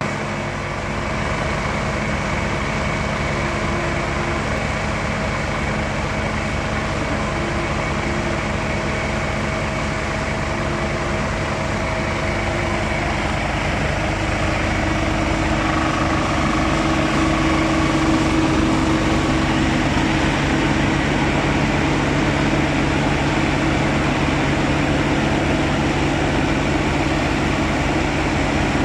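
Diesel engine of a DHBT15 concrete mixer pump running steadily, a little louder from about halfway.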